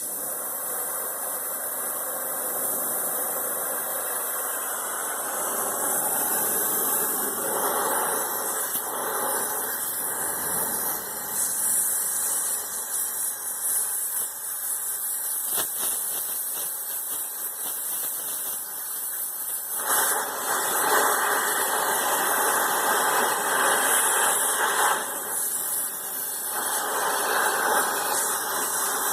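Backhoe engine running steadily, with louder stretches about two-thirds of the way through.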